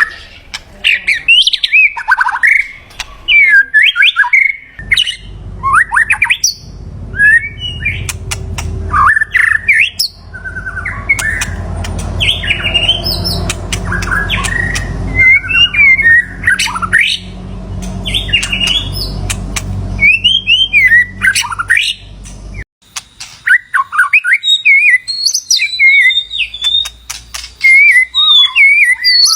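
White-rumped shama singing: a continuous run of rich, varied whistled phrases with quick rising and falling notes and interspersed clicks. A low steady rumble runs underneath for most of the middle and cuts off abruptly about three-quarters of the way through.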